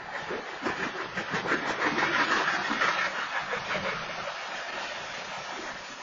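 BNSF train rolling past the crossing: a steady rumble of steel wheels on rail with irregular clacking, loudest about two seconds in and then slowly fading.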